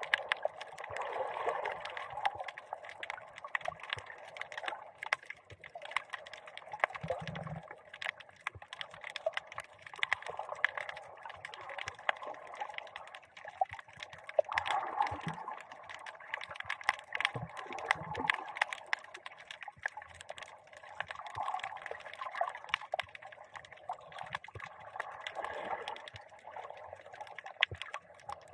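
Underwater ambience heard through a camera's waterproof dive housing: a muffled, steady water wash with many small, sharp crackling clicks throughout.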